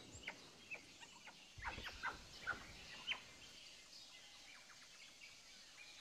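Faint rainforest ambience with a run of about ten short, high, downward-sliding chirps in the first three and a half seconds, then only a soft background hiss.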